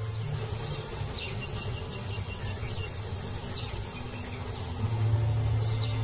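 Insects chirping and buzzing over a steady hiss, with a low hum underneath that drops away about a second in and comes back near the end.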